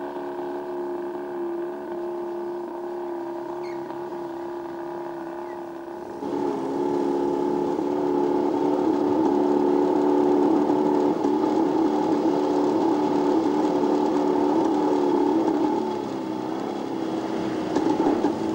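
Old car's engine running at a steady speed with a droning whine. It gets louder about six seconds in, and its pitch dips and wavers near the end.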